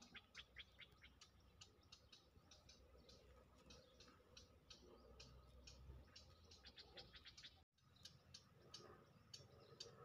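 Quiet ambience with faint, rapid, irregular clicking, several clicks a second. The sound cuts out for an instant about three-quarters of the way through.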